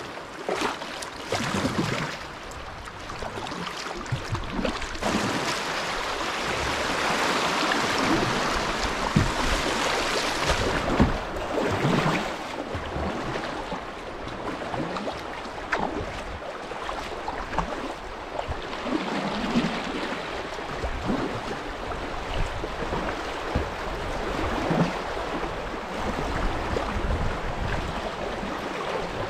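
Shallow river water rushing over riffles around a moving kayak, with kayak paddle blades splashing into the water at irregular intervals. The rush swells a few seconds in and eases off about halfway through.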